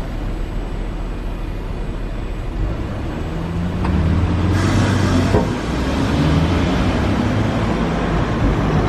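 Iyo Railway type 50 streetcar with nose-suspended traction motors running slowly along street-running track over steady city traffic noise. A low motor hum comes in about three to four seconds in, grows louder, then holds steady.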